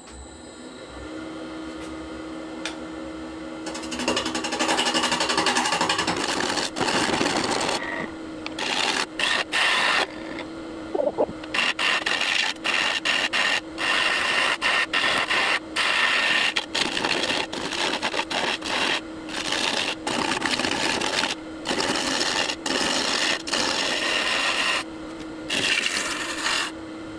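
Wood lathe spinning a lopsided blank of walnut pieces and blue epoxy, its motor giving a steady hum. From about four seconds in a gouge cuts the off-centre blank, the cutting noise loud and rough and breaking off and returning every fraction of a second as the tool meets the uneven surface.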